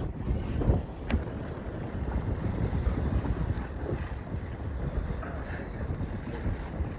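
Wind buffeting the microphone in a dense low rumble, over the wash of waves around a small boat. A couple of short clicks come about a second in.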